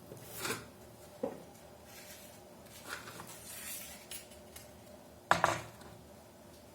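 Small taps, rubs and clicks of hands working on a wall clock's hands and quartz movement as the minute hand is fitted onto the spindle, with one sharp click a little after five seconds in.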